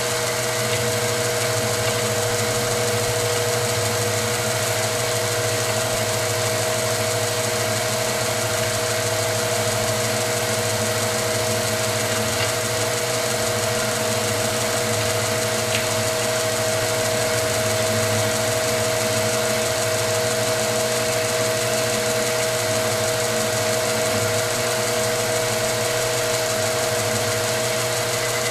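Milling machine running steadily with an end mill cutting into a tubular metal shotgun muzzle brake: a constant hum with a steady whine that does not change.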